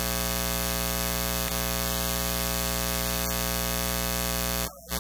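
Steady electrical mains hum and buzz on the audio line, cutting off abruptly near the end.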